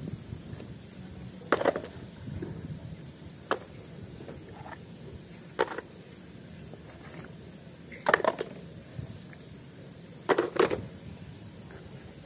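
Mud-covered toy vehicles being picked up and knocked down against a tray and container: about five separate clunks, two to three seconds apart, with softer handling sounds between.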